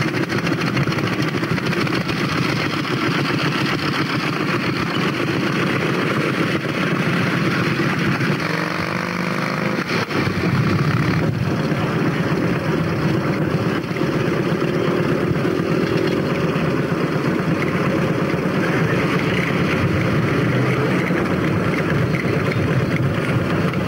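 Vintage motorcycle engines running, a steady dense engine noise on an old camcorder soundtrack, with an abrupt change about ten seconds in.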